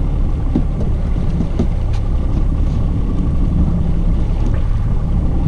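Boat's outboard motor running steadily at low speed, a continuous low rumble.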